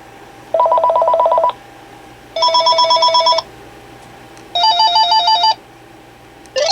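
Panasonic KX-TG4031 DECT 6.0 Plus cordless phone's electronic ringer ringing: three bursts of about a second each, about a second apart, each a fast trilling warble between two tones. A rising sweep starts right at the end.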